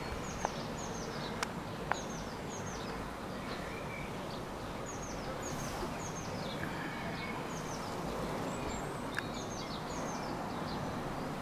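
Small birds chirping: short, high, falling chirps in little runs of two or three, repeating every second or so over a steady background hiss. A few faint clicks come in the first couple of seconds.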